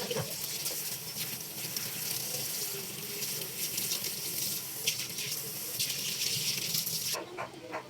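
Water running steadily from a tap, cutting off suddenly about seven seconds in.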